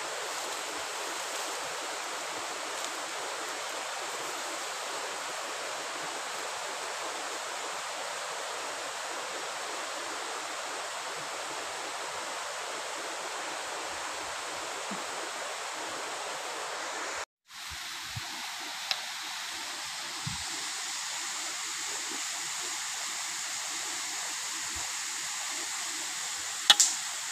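Steady rush of a waterfall or fast stream heard through the forest. About two-thirds of the way through the sound cuts out for an instant and comes back thinner and higher, and there is one sharp click near the end.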